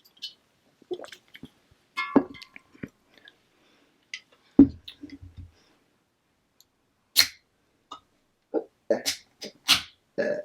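Close-up chewing and mouth sounds of someone eating a barbacoa burrito: irregular, scattered smacks and crunches, with a quicker run of them near the end.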